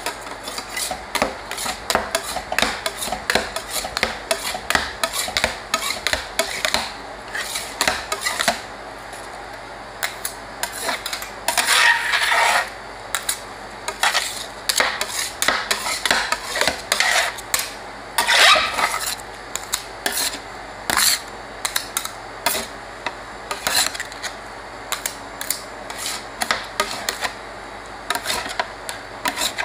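Two metal spatulas chopping and scraping ice cream on a cold stainless-steel ice-cream-roll pan, with rapid clicks of the blades on the steel. Two longer, louder scrapes come about twelve and eighteen seconds in.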